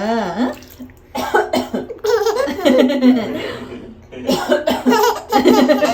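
A woman coughing several times in separate bouts, with a baby's laughter mixed in.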